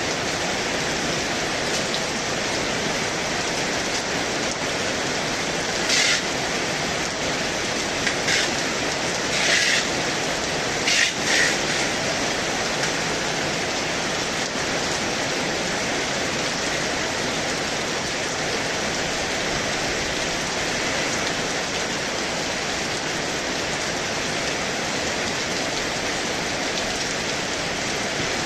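Heavy rain falling in a steady, dense hiss. A handful of brief, louder splashes come between about six and twelve seconds in.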